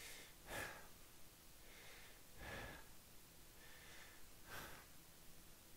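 Faint, deep breathing of a man holding a side plank: three slow breaths about two seconds apart.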